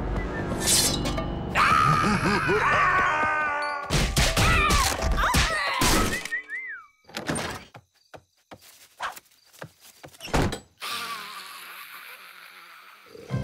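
Cartoon slapstick sound effects. The background music breaks off, then come wavering yelps and squeals, a run of thuds, knocks and crashes, and a hissing stretch near the end.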